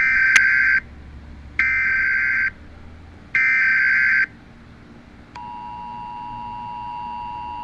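Emergency Alert System tones: three short bursts of SAME digital header data, then a little over five seconds in, the steady two-tone EAS attention signal starts and holds.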